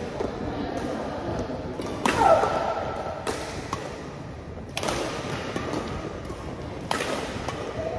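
Badminton rallies in a large indoor hall: sharp smacks of rackets hitting shuttlecocks, several strong hits a second or two apart among fainter ones from neighbouring courts, with a short squeak about two seconds in.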